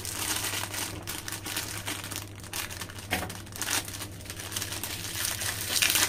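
Small foil-lined plastic snack packet crinkling and crackling in the hands as it is handled and pulled open, loudest a little before the end.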